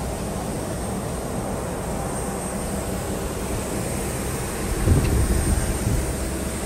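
Aircraft running on an airport apron: a steady rumble with a thin, high-pitched whine over it, swelling louder for a moment about five seconds in.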